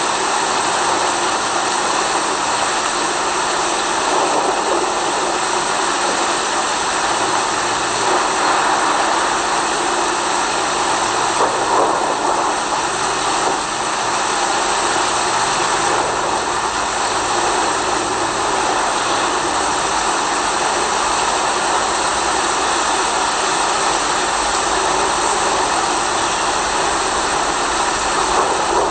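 Steady rain noise: a dense, even hiss with no breaks or single drops standing out.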